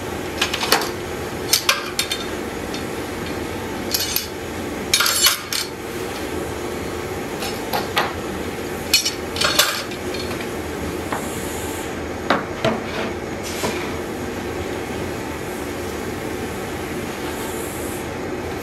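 Steel bar clamps clinking and clanking as they are slid and tightened on a steel bar and blade: scattered sharp metal knocks in small clusters, thinning out after about thirteen seconds, over a steady low hum.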